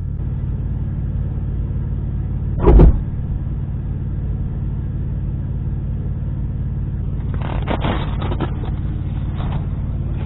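Semi truck's diesel engine idling steadily, heard from inside the cab, with a short loud thump about three seconds in and a cluster of rattling knocks near the end.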